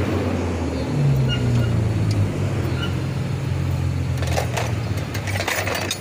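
Diesel engine of a loaded Mercedes-Benz Actros 4043 6x6 logging truck running as it drives slowly on a dirt road, a steady low drone whose note steps up about a second in. From about four seconds in, a run of sharp clicks and knocks joins it.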